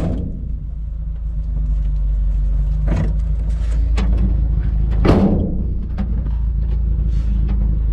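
Suzuki Samurai's engine running with a steady low rumble, heard from inside the cabin, with a couple of sharp knocks about three and five seconds in.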